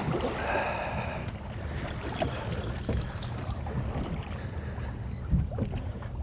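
Wind on the microphone and water slapping against a small boat's hull, over a steady low rumble, with a couple of dull knocks near the start and about a second before the end.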